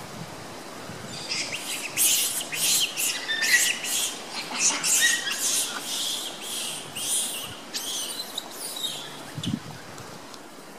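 Birds chirping: a quick run of sharp, high chirps, two or three a second, starting about a second in and dying away after about eight seconds.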